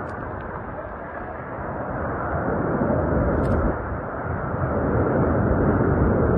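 Hurricane-force wind blasting across the microphone in a steady rush, swelling into a stronger gust over the second half.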